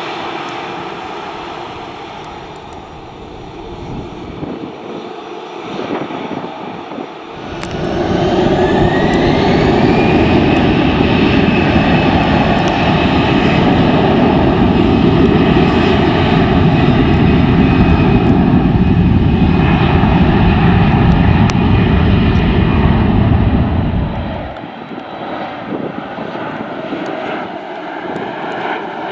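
Airbus A320 jet engines (CFM56) spooling up to takeoff thrust about a quarter of the way in, a rising whine that settles into a steady high tone over loud engine noise through the takeoff roll. About three-quarters through the loud noise cuts off abruptly, leaving a quieter jet engine sound.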